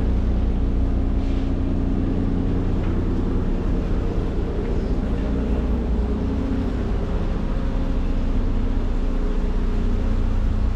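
Steady low engine hum with several steady tones, the docked high-speed ferry's engines running at the pier.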